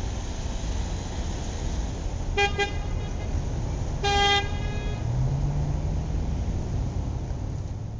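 Road traffic with a steady engine rumble, and car horns honking over it: a quick double beep about two and a half seconds in, then a longer honk at about four seconds.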